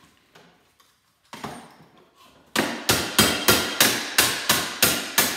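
Hammer striking the cap on a cordless grass trimmer's head, which is clamped in a bench vise. A few light knocks come first, then about two and a half seconds in a quick, even run of hard blows starts, about three a second.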